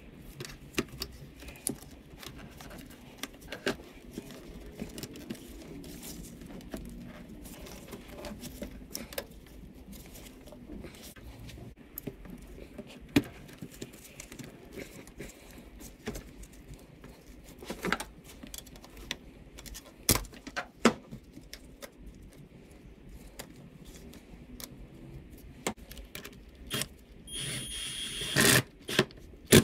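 Rubber air-intake duct and its plastic fittings being worked into place by hand on a Honda CR-V engine: scattered clicks, knocks and rubbery scraping. Near the end a small cordless power tool runs for about a second and a half, with a steady whine, to tighten the duct's clamp.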